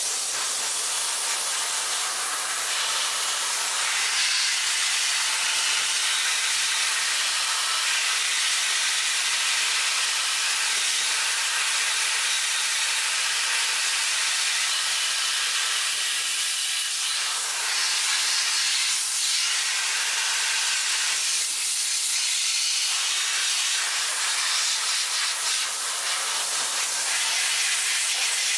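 Dry ice blasting gun blowing a steady, loud hiss of compressed air and dry ice pellets onto the wheel well and suspension to strip grime, its tone shifting a little now and then.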